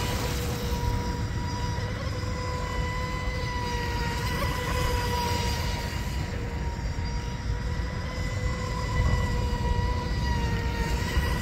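Brushless motor of an RC mono speedboat (a 2948-size 3450 kV motor on a 3S LiPo swinging a 37 mm prop) giving a steady high-pitched whine at speed.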